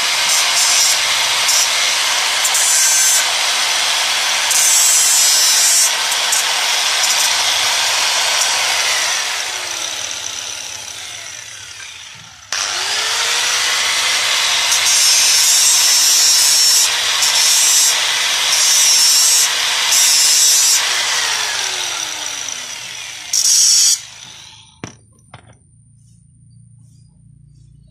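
Handheld electric angle grinder cutting a 6 mm steel rod: the motor spins up with a rising whine, the disc screeches in repeated bursts as it bites into the metal, then the motor winds down. This happens twice, then there is one short burst of the grinder and a few light knocks near the end.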